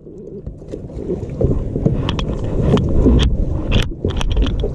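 Wind rumbling on the microphone, with a series of sharp knocks and clicks from about two seconds in as a compartment hatch and gear are handled on a bass boat's deck.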